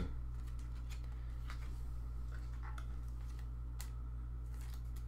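Sports trading cards being handled, making faint scattered clicks and rustles, over a steady low hum.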